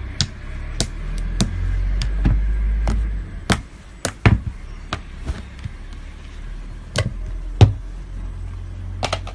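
Fingers pressing and poking thick pink slime in a plastic tub, making irregular sharp clicking pops over a low rumble, the loudest about seven and a half seconds in.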